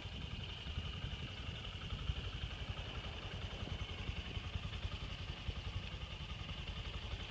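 Honda Grom's 125 cc single-cylinder four-stroke engine idling steadily, an even, rapid low putter.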